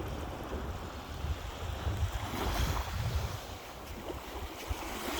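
Sea surf washing on the shore, one wave swelling up about halfway through, with wind buffeting the microphone.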